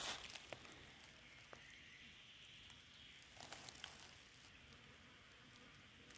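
Faint footsteps rustling through dry leaf litter and undergrowth on a forest floor: a few soft steps just after the start and a short cluster of rustles about three and a half seconds in, with faint hiss between.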